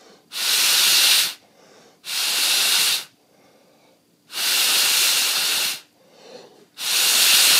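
Four hard puffs of breath blown through a drinking straw onto the rotor of a small 3D-printed magnet motor, spinning it up to speed. Each puff is a loud rushing hiss about a second long, with short quiet gaps between them.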